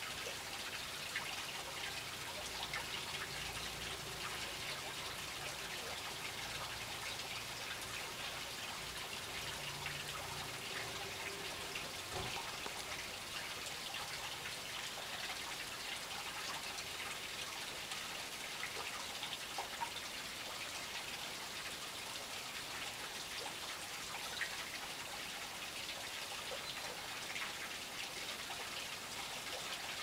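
Small garden fountain: a steady trickle and splash of falling water.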